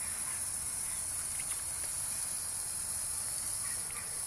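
Steady high-pitched hiss of water running from a garden hose.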